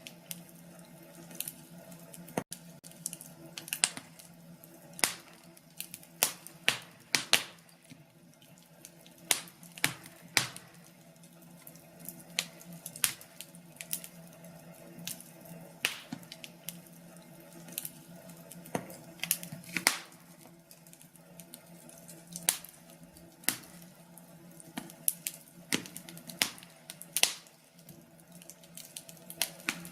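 Wood fire crackling in a fireplace: irregular sharp pops and snaps, a few each second and some louder than others, over a steady low hum.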